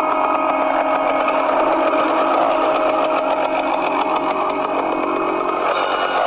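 Chainsaw engine running steadily at idle, a continuous buzzing tone; about six seconds in, a higher, brighter whine joins it.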